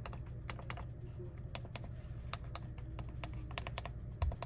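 Front-panel push-button micro switches of an Icom IC-7700 transceiver being pressed one after another, each giving a crisp click. The buttons are being tested for function after the switch assemblies were cleaned. There is a light bump near the end.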